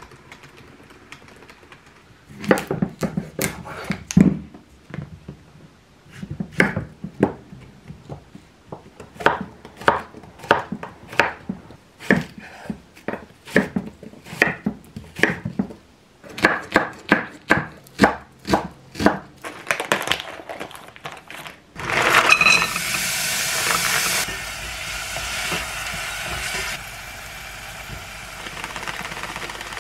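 Kitchen knife chopping onion and zucchini on a wooden cutting board, in quick runs of sharp strokes. About 22 seconds in, this gives way to a steady sizzle of pork frying in a small pot on a gas stove.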